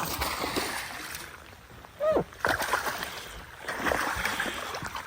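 Water splashing and sloshing as a hooked bass thrashes at the surface beside the boat, with scattered knocks and a short rising-and-falling cry about two seconds in.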